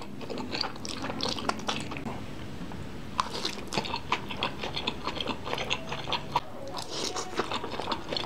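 A man eating Samyang Buldak Jjajang instant noodles, slurping and chewing, with a steady scatter of close, wet mouth smacks and clicks.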